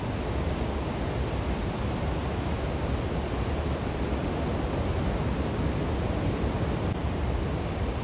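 Steady wash of ocean surf breaking on the beach, with wind rumbling on the microphone.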